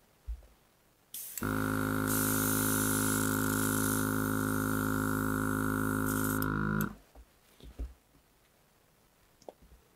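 Small battery-powered airbrush compressor running on its high setting with a steady hum, while air hisses out of the airbrush as it sprays ink. It starts about a second in and cuts off after about five and a half seconds.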